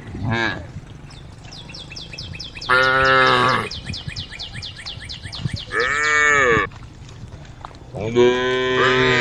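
Cows mooing, calling to the herd: a short call right at the start, then three long moos about three, six and eight seconds in, the last running on past the end. A fast, even, high chirping ticks in the background through the middle.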